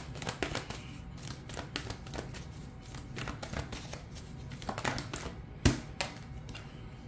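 A deck of tarot cards being shuffled by hand: a run of quick soft clicks and riffles, with one sharper snap of the cards about five and a half seconds in.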